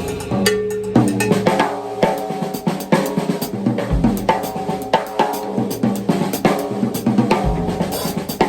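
Drum kit being played in a busy groove: quick snare and tom strokes with pitched tom tones ringing under them, cymbal or hi-hat strokes, and a few deep bass drum hits. The playing stops abruptly at the end.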